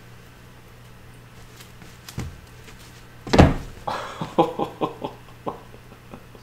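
Balinese kitten wiping out while leaping at a wand toy: a soft knock about two seconds in, then a loud sudden thump a little after three seconds, followed by a quick run of light clicks and knocks. A faint steady hum sits underneath.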